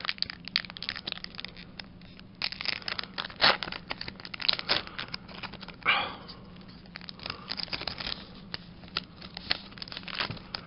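Foil wrapper of a Pokémon trading-card booster pack crinkling with many sharp crackles as it is handled, then torn open across the top about halfway through.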